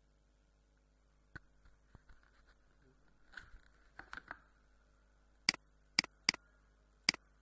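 Computer mouse clicking: a few faint clicks, then four sharp, loud clicks in the last two seconds.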